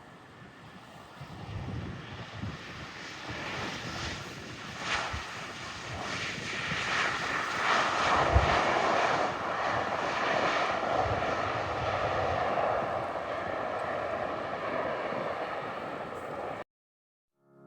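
Airliner on approach passing overhead: engine noise swells over several seconds, peaks about eight seconds in, then slowly fades. It cuts off abruptly about a second before the end.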